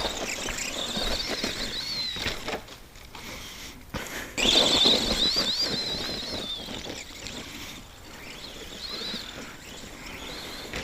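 Arrma Granite RC monster truck's electric motor and gears whining as it is driven, the pitch rising and falling with the throttle, over the hiss of the tires on dirt. There are two main runs, the second starting about four seconds in, then a fainter one near the end.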